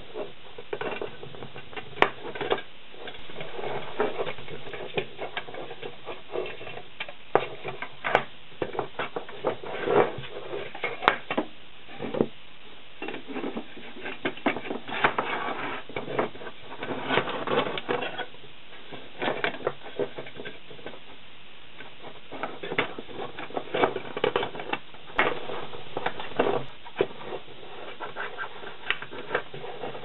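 Stiff wire being bent and twisted with pliers against the rim of a sheet-metal can: irregular clicks, scrapes and small metallic taps, some sharper than others.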